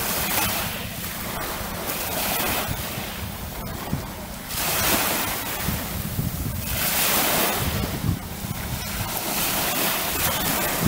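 Sea waves washing onto the shore, surging and falling back every couple of seconds, with wind buffeting the microphone as a steady low rumble.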